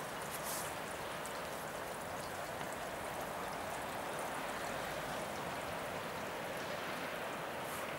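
Steady rain falling, an even rushing hiss with faint scattered drips.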